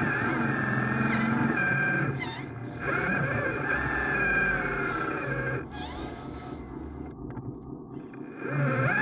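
Electric motors and hydraulic pump of radio-controlled construction machines whining, their pitch rising and falling as the machines work, easing off twice.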